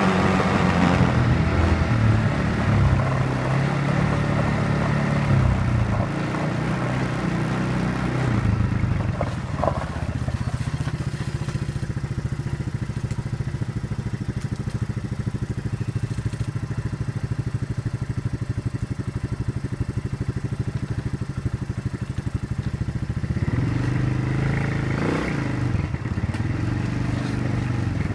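ATV engine running at low speed, its pitch rising and falling through the first several seconds and again near the end, with a steady idle in between.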